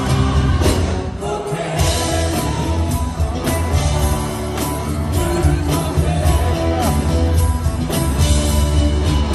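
Live rock band playing, heard from the audience in a concert hall: electric guitar over a heavy bass and a drum kit with steady cymbal hits.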